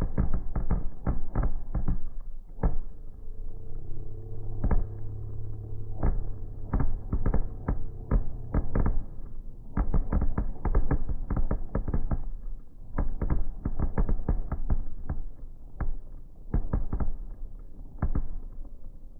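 Aerial firework shells bursting in rapid, irregular volleys of booms and cracks, with a few brief lulls between the volleys.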